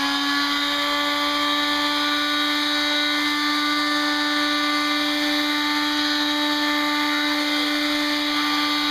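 Electric palm sander running at a steady speed, giving an even, constant motor hum.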